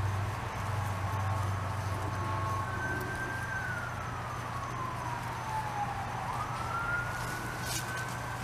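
An emergency-vehicle siren wailing: one tone that slowly falls in pitch over a few seconds and then rises again. A steady low hum runs underneath.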